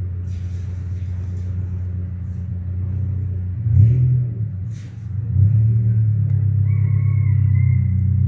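A loud, steady low mechanical hum that shifts slightly in pitch twice in the middle, with a faint higher wavering call near the end.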